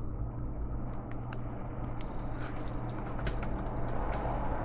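A steady low hum with a few faint, light clicks from fingers handling a laptop keyboard's ribbon cable and its plastic connector latch.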